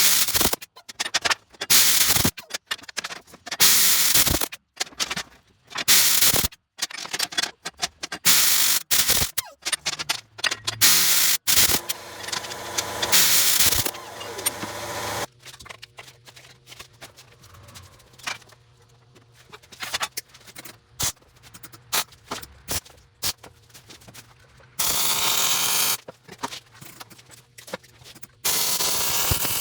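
Choppy bursts of metal-shop tool noise that start and stop abruptly, many short pieces in the first half. The second half is quieter, with a faint steady hum and two longer stretches of steady noise near the end.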